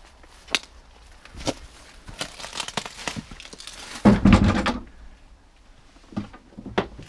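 Crunching, scraping and rustling of someone clambering through a low opening into a cellar over dry grass and debris. There are scattered sharp crunches, then a loud, heavy scraping rustle about four seconds in.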